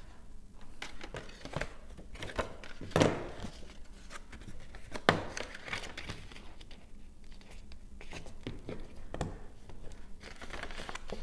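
Black cardstock being folded along its score lines and the creases pressed down: paper crackling and rustling, with a couple of sharper snaps about three and five seconds in.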